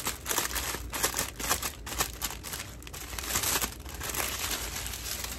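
Clear plastic bag crinkling as it is opened and a chiffon scarf is pulled out of it, a run of irregular crackles that thins out near the end.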